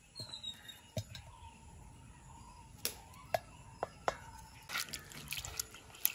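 Small knife cutting a tomato held in the hand, with sharp scattered clicks of the blade and of pieces dropping into a small bowl. Near the end, a quick run of clicks and splashes as soaked split lentils are rubbed in water.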